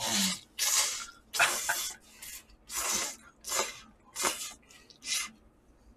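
Instant ramen noodles being slurped in a quick run of about eight airy slurps, roughly one every 0.7 s, stopping about five seconds in.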